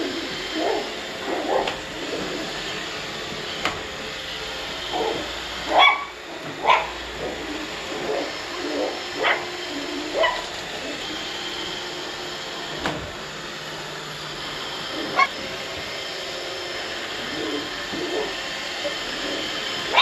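A small puppy yapping and barking at a running Roomba robot vacuum in scattered short yaps, loudest about six seconds in. The robot vacuum's steady motor noise runs underneath.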